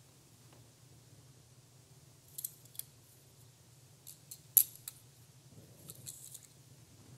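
Handling noise: three clusters of small, sharp clicks and rattles, about two and a half, four and a half and six seconds in, the loudest single click near the middle, over a low steady hum.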